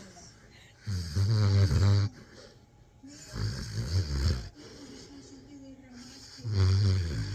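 A sleeping, dreaming dog snoring loudly: three long, low-pitched snores, a couple of seconds apart.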